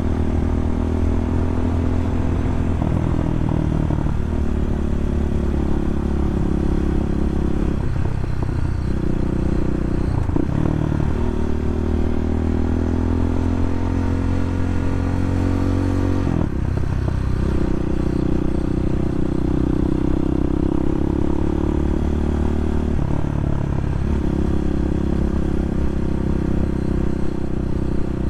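Bashan 250 dirt bike engine running under way up a mountain road. Its pitch climbs steadily for long stretches as it accelerates, then dips briefly about five times as the throttle comes off.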